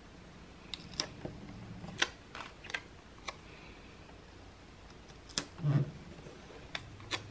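Hands handling paper stickers and pressing them onto a planner's textured cover: scattered light clicks, taps and paper rustles, with a duller knock a little under six seconds in.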